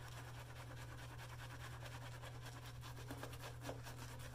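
Paragon 2-band badger shaving brush working soap lather on a bearded face: a faint, continuous scrubbing and crackle of wet bristles and lather, over a steady low hum. The lather is overhydrated.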